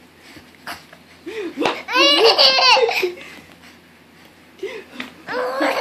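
Baby laughing in two bouts of high-pitched giggles: a run of quick laughs about two seconds in lasting about a second, then another starting near the end.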